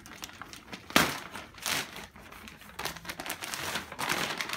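Clear plastic wrapping crinkling and rustling as it is pulled off a rolled area rug, in irregular handfuls, with one sharp loud crackle about a second in.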